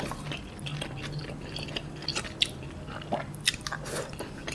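Close-up chewing and wet mouth clicks as a person eats chewy tteokbokki rice cakes, with many short, scattered smacks.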